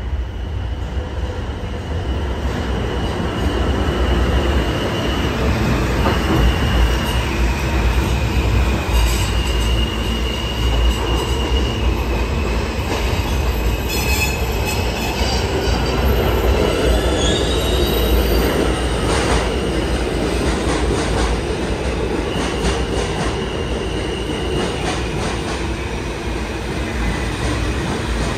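New York City subway trains running through an underground station: a steady rumble of steel wheels on the rails, with a high wheel squeal that comes and goes.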